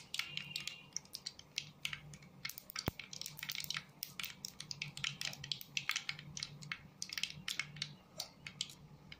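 Mustard seeds popping in hot oil in a kadai during tempering: irregular sharp crackles and pops, several a second.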